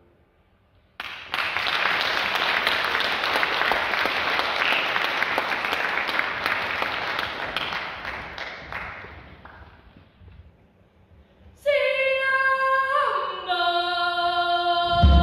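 Audience applauding for about eight seconds, then dying away. A couple of seconds later, voices sing a few held notes, each a step lower than the last.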